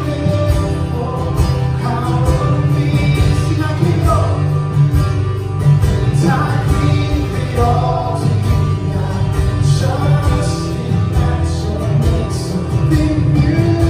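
Live worship band playing a contemporary worship song: acoustic and electric guitars, keyboard and drums with cymbals, and a singing voice over the band.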